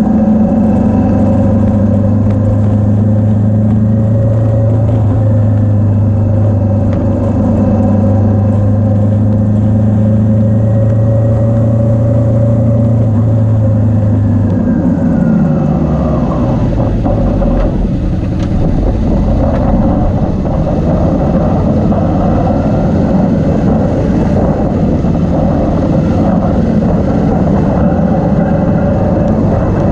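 Motorcycle engine running at a steady cruising pace with a constant hum. About halfway through, the pitch drops as the bike slows, and the running turns rougher and more uneven.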